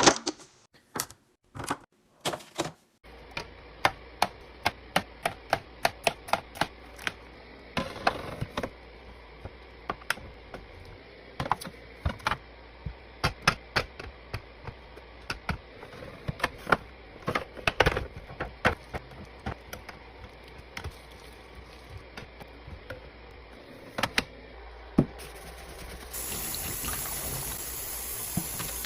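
Containers and packaged items being handled and set down one after another while a fridge is restocked: a run of irregular sharp clicks and knocks over a steady hiss. Near the end a louder, steady hiss comes in.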